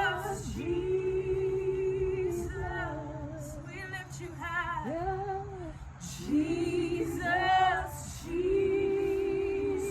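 A woman singing slow, drawn-out worship phrases, holding long notes with vibrato and sliding between them, over a steady low hum.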